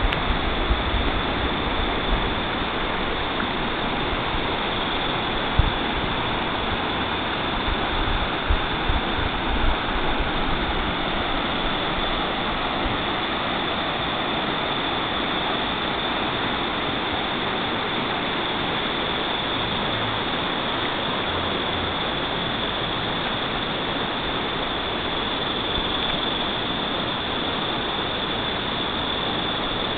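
River water flowing, a steady, constant rush, with a few short low bumps in roughly the first ten seconds.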